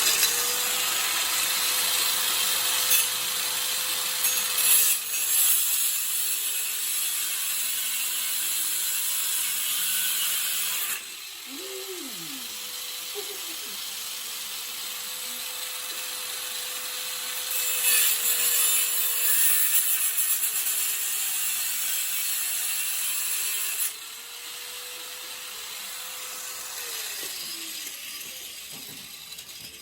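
Cheap Harbor Freight angle grinder with a cut-off wheel cutting through 11-gauge steel plate in two long passes, a loud hiss over a steady motor whine, spinning more quietly between passes. The motor slows briefly about eleven seconds in and winds down near the end.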